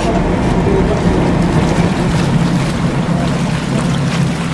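Car ferry's engines running with a steady low drone, under an even rushing noise of wind and water.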